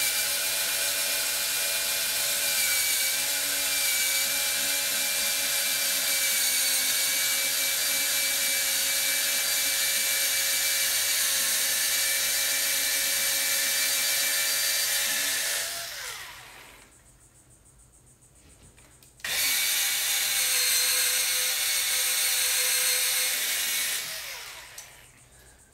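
Cordless drill with a 3/16-inch bit boring up through the ceiling into a wooden roof truss, its motor giving a steady whine. The drill winds down about fifteen seconds in, starts again suddenly about three seconds later, and winds down once more near the end.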